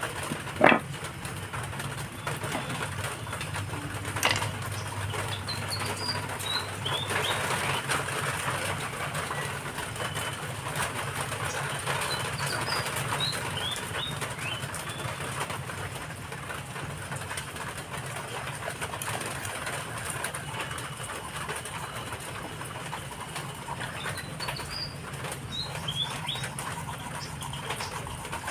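A kitchen knife sawing through a fish's body on a wet concrete floor, with faint scraping and clicks. A small bird chirps in short runs of rising and falling notes three times in the background, over a low steady hum.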